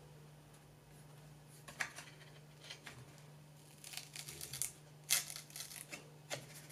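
Strong double-sided tape tearing loose in short crackling bursts as a taped-down sheet is pried up by hand, starting about two seconds in.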